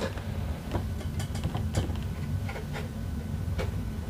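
Light, irregular clicks and taps of fingers gripping and twisting the metal hatch fastener on a Proboat Jetstream RC jetboat's hull, over a low steady hum.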